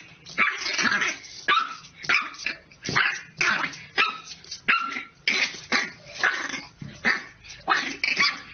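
A bulldog puppy barking at its reflection in a mirror: short, high barks in quick succession, about two a second, with some growling.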